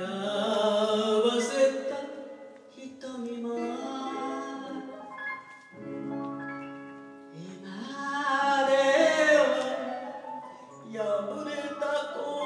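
A woman singing a song live into a microphone over band accompaniment, her voice wavering with vibrato on held notes. About halfway through, the voice gives way briefly to steady held chords from the band before she sings again.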